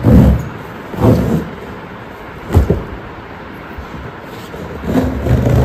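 Cardboard fan carton being handled and opened: a few dull knocks and rustles, the sharpest a short knock about two and a half seconds in, and a longer stretch of rustling near the end.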